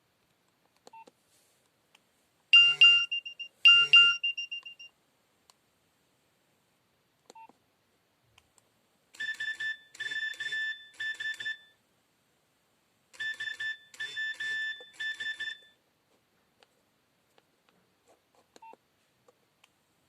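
Nokia 6030 mobile phone playing alert tones. First come two pitched beeps about a second apart, each fading away. After a pause comes a rapid chirping pattern in three quick bursts, and it repeats once after a short gap.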